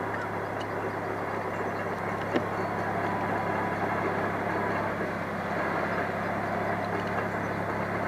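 Fire engine's engine running steadily as it is heard at the pump panel, a constant low hum, with a single sharp click about two and a half seconds in.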